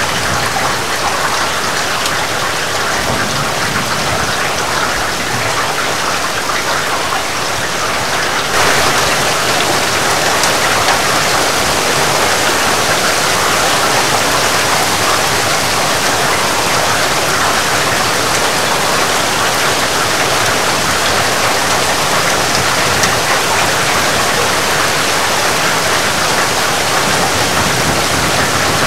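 Heavy rain falling steadily, an even hiss of drops, growing a little louder and brighter about a third of the way in.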